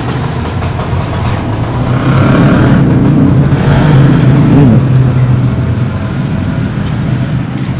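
A motor vehicle's engine passing close by, growing louder a couple of seconds in and fading after about five seconds, over a steady low hum.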